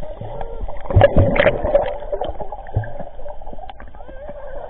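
Muffled underwater sound in a swimming pool: churning water and bubbles from a person moving close by, loudest about a second in, then quieter with scattered bubble clicks.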